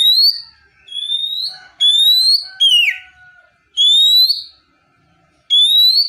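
Oriental magpie-robin (kacer) giving six loud, short rising whistled calls about a second apart, one of them falling instead. This is the calling tone used to make a listening kacer think it is being called and answer.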